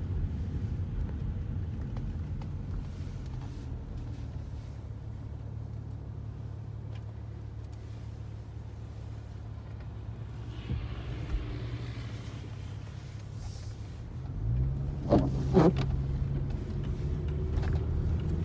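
Car engine and road noise heard from inside the cabin while driving, a steady low rumble. About fourteen seconds in, the engine picks up, and a few sharp clicks follow.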